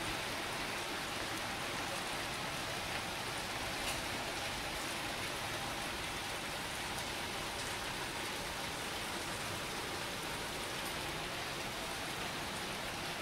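Steady rain falling, an even hiss with a few faint drip ticks.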